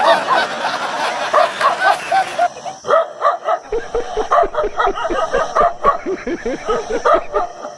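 A dog barking and yipping in quick, short, repeated calls, several a second.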